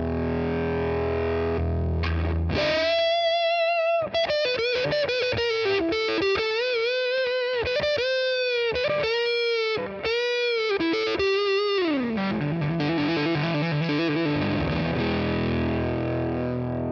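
Electric guitar played through a home-built BJFE Bone Bender, a Tone Bender-style fuzz pedal, into a guitar amp. A fuzzy chord rings, then a single-note lead line with string bends and vibrato, a slide down in pitch about twelve seconds in, and ringing chords near the end.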